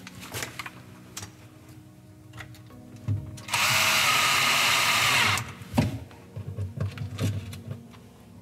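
Cordless drill-driver running for about two seconds, driving a screw that fixes an LED light fitting to the side of a kitchen cabinet. A few sharp clicks and knocks come before and after it.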